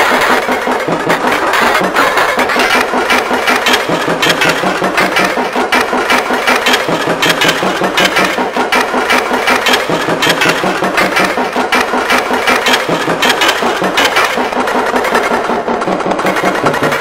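A horror sound effect chopped up and sequenced into a YTPMV remix: a loud, buzzing, engine-like sample repeated in a fast, even rhythm.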